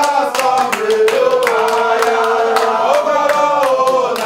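A group of people singing together, with rhythmic handclapping keeping a steady beat.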